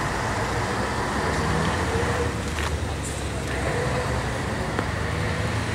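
Steady road traffic noise, a continuous low drone of passing vehicles.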